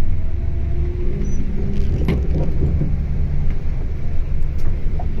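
Coach bus travelling at road speed on a wet highway, heard from inside the cabin: a steady low rumble of engine and tyres, with a single sharp knock about two seconds in.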